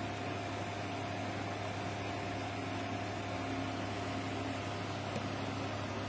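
Steady low mechanical hum with a faint, constant higher whine above it, unchanging throughout.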